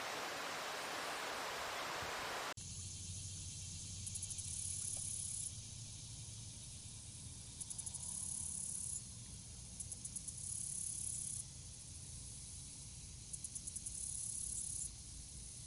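A steady rushing noise cuts off abruptly about two and a half seconds in, giving way to insects calling: a high-pitched buzz that opens with rapid stuttering pulses and then holds steady for about a second and a half, four times over, above a faint low hum.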